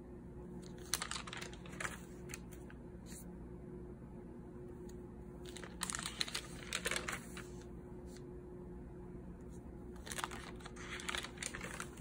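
Paper pages of a spiral-bound notebook being turned by hand: three bursts of page rustling, about a second in, around the middle and near the end, over a faint steady hum.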